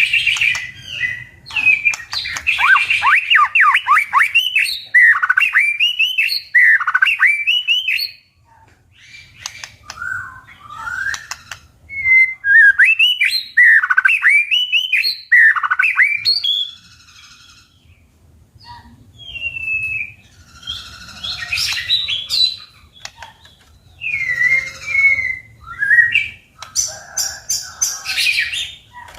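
White-rumped shama singing a loud, varied fighting song of whistled phrases with quick falling sweeps, mixed with runs of sharp clicking notes. The song drops to quieter, sparser notes for a few seconds about a third of the way in and again just past the middle.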